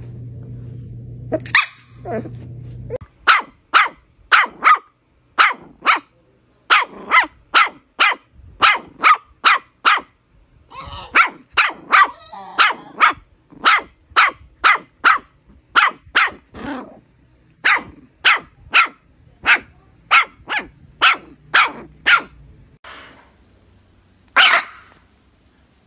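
Puppies barking: a long run of short barks in quick succession, about two a second, several puppies one after another, then a single last bark near the end.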